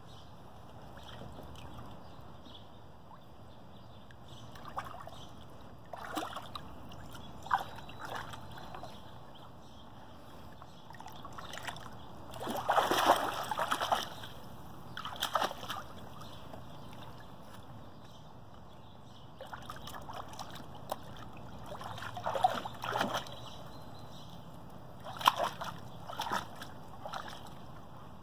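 Water sloshing and splashing in a shallow inflatable pool as a Standard Poodle puppy wades and paws at it, in irregular bouts of splashes with the loudest about halfway through.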